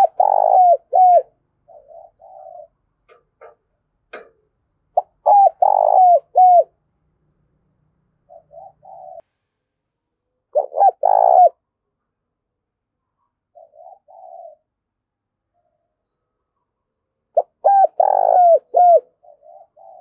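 Spotted dove cooing: four loud phrases of several coos each, roughly every five or six seconds, with softer short coos in between.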